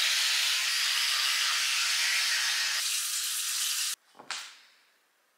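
A steady hiss that cuts off suddenly about four seconds in, followed by a short whoosh.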